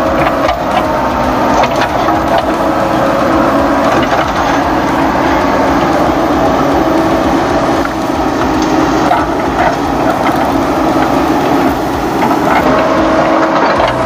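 Huina RC toy excavator's electric track motors running with a steady whine while its plastic tracks clatter, with scattered clicks and crackling as it climbs onto a plastic trailer ramp.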